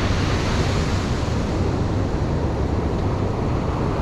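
Ocean surf breaking and washing up the beach, a steady wash of noise, with wind rumbling on the microphone.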